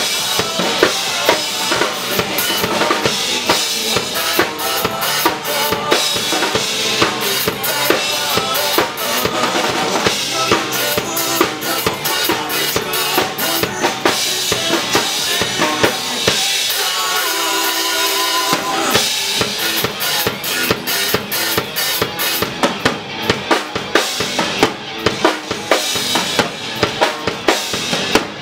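Acoustic drum kit played live along to a pop-rock backing track, with kick, snare and cymbals driving a steady beat. Past the middle, the drums drop out for a couple of seconds, leaving the track's melody, then come back in.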